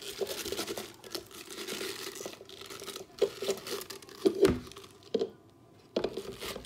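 Fresh spinach leaves rustling and crinkling as a hand packs them by the handful into a plastic blender cup, with a few sharp knocks, the loudest about four and a half seconds in.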